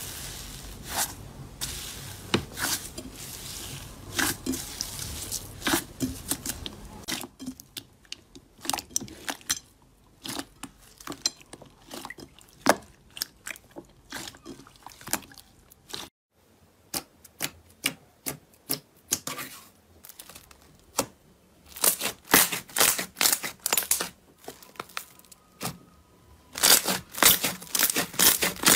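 Hands squeezing and kneading slime: irregular runs of sharp crackles, pops and squelchy clicks. The sound is densest and most crackly at first, breaks off briefly just past halfway, and the loudest clusters of pops come near the end.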